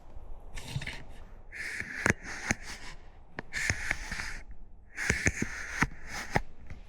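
A runner breathing hard, in long rushing breaths about every one to two seconds, with sharp footfalls knocking in between.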